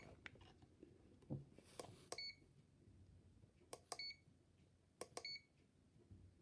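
Digital multimeter's rotary selector being turned: three pairs of clicks, each followed by a short high beep from the meter as it changes setting. There is a faint knock about a second in.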